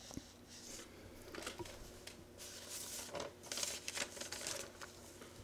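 Faint rustling and scraping of cardstock being handled: a paper butterfly trimmed with small scissors, then worked with an ink sponge.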